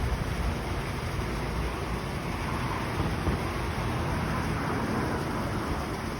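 Street traffic noise, with a vehicle passing that swells and fades in the middle.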